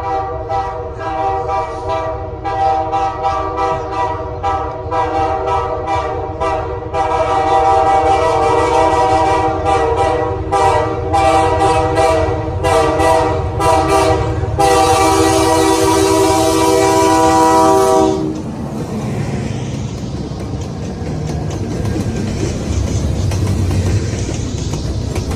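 Freight train's locomotive air horn sounding a chord of several notes in long blasts as the train approaches, growing louder about seven seconds in and stopping about eighteen seconds in. Then the rumble and rattle of freight cars rolling past close by.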